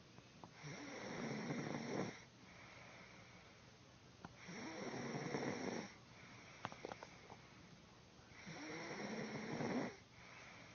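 Steady sleep snoring: three long snores, each about a second and a half, coming about every four seconds, with softer breaths between them.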